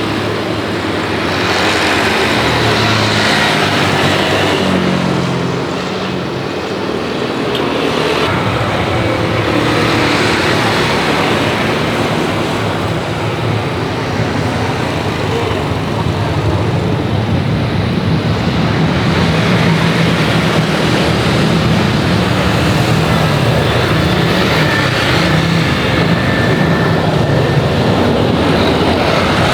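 Steady vehicle and road-traffic noise, with a low engine hum that shifts in pitch now and then.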